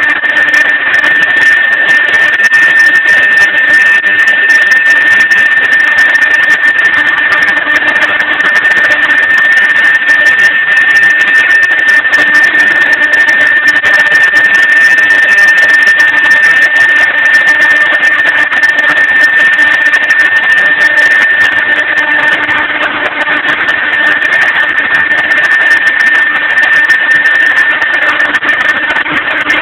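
Mahecor KM 30 CNC router running: a steady high-pitched whine over a loud, even machine noise.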